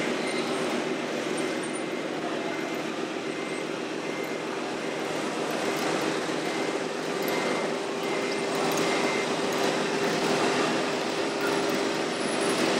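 Radio-controlled model construction machines running: a steady mechanical hum with a fainter high whine that starts and stops several times.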